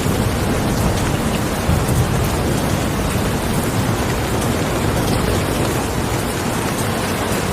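Steady heavy rainfall, a continuous hiss of drops with faint individual drop ticks and a low rumble underneath, a little stronger in the first two seconds.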